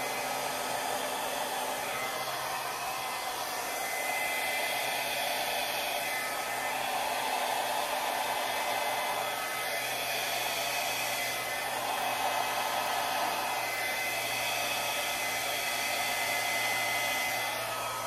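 Drew Barrymore Flower blow dryer running steadily, blowing air onto wet acrylic paint on a canvas. Its level rises and falls a little as it is moved about.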